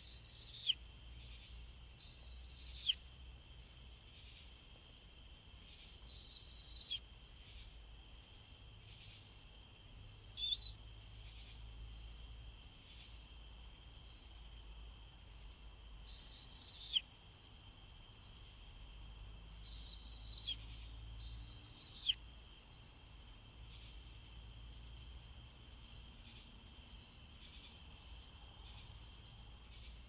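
Caspian tern calls: seven high, thin notes, each held briefly and then sliding steeply down, one of them much shorter. Under them runs a steady high-pitched insect drone.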